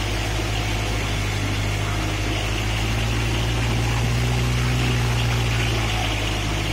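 Kubota MU4501 tractor's four-cylinder diesel engine running at a steady speed as the tractor drives through a flooded, muddy field.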